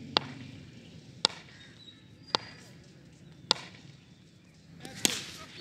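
Sharp knocks repeated at an even pace about once a second, five in all, the last one louder.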